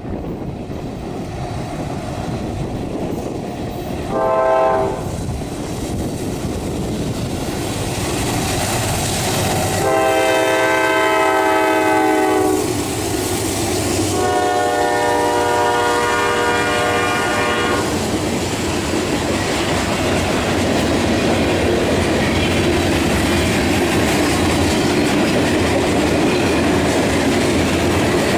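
Train's air horn sounding a chord of several tones: a short blast about four seconds in, then two long blasts starting about ten and fourteen seconds in. Under the horn, the train's steady rumble and clickety-clack of wheels on rail joints grows louder as it passes.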